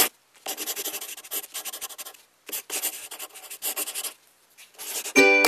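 Pen-writing sound effect: scratchy bursts of a pen scribbling on paper, two long strokes of about two seconds each and then a short one. Plucked-string music starts near the end.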